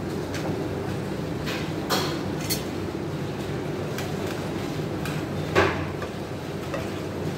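A few short knocks and clatters of kitchen items being handled and set down on a counter, the loudest about five and a half seconds in, over a steady low hum.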